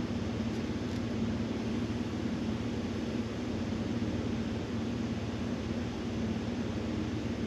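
Steady electric hum with a hiss of moving air from a running fan, unchanging throughout.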